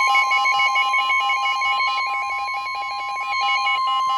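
Emergency Alert System attention signal: the National Weather Service's single steady tone, sounded before a warning message is read, with a fast, evenly stepping electronic beep pattern layered over it.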